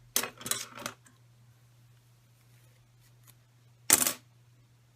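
Handling clatter as a can of hairspray is picked up: a quick run of clicks and knocks in the first second, then a single short, loud burst about four seconds in.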